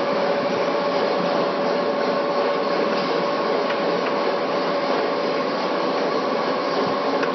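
A fried ice cream machine's refrigeration unit runs with a steady hum and two held tones, while metal spatulas scrape and chop ice on its chilled steel pan.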